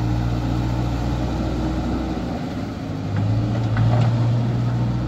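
JCB backhoe loader's diesel engine running steadily as the machine drives along a railway track, growing louder about three seconds in.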